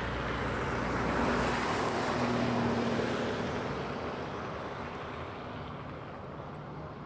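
Road traffic: a vehicle passing, its noise swelling over the first few seconds and then fading away, with a low engine hum that stops about two seconds in.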